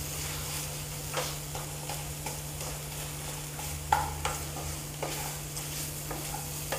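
A spatula scraping and tapping in a kadai as onion-tomato masala is stirred and mashed, over a low sizzle of frying. There are irregular scrapes throughout, with the sharpest about four seconds in.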